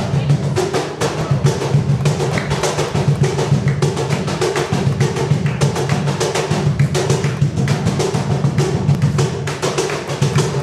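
Cajón played with bare hands in a fast, dense run of slaps and strikes on the wooden box.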